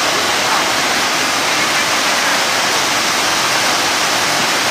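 Steady rushing noise of falling water, even and unbroken.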